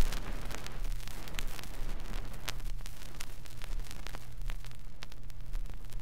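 Vinyl LP's lead-in groove playing on a Garrard turntable: a sharp click as the stylus sets down, then surface crackle with scattered pops over a steady low hum, before the music begins.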